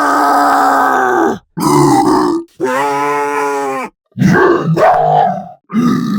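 Tusken Raider cries sound effect: a string of about five loud calls separated by short breaks. The longest, near the middle, is a pitched call that dips and then rises.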